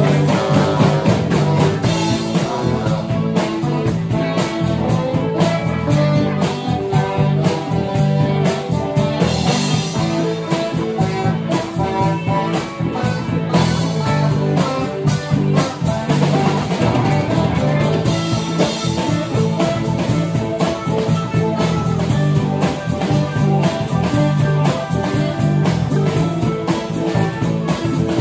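Live band jam, instrumental: electric guitars and a bass guitar playing together, with a steady beat.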